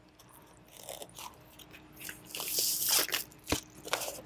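Plastic shrink wrap on a gatefold LP jacket crinkling and rustling as it is worked loose, loudest in a burst about two and a half seconds in, with scattered crackles and a few sharp ticks.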